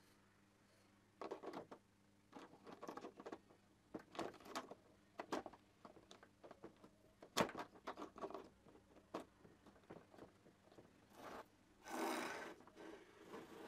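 Handling noises on a plastic car headlight housing: a rubber dust cover and bulb fitting being pressed and worked into the socket at the back, with scattered knocks and rubs, one sharp click about halfway through, and a longer scraping rub near the end as the housing is moved.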